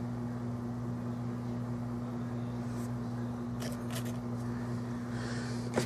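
Steady low electrical hum over faint hiss, with a few faint light clicks about two-thirds of the way through and again near the end.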